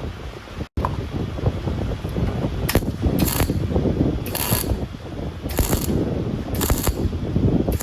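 A workshop tool running with a dense mechanical rattle, with short hissing bursts about once a second.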